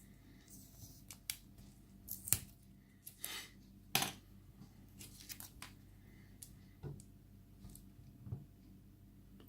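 Sticky tape being peeled and torn off a lock by hand, in a string of short rips and crinkles with small clicks between them; the loudest rips come about two and four seconds in.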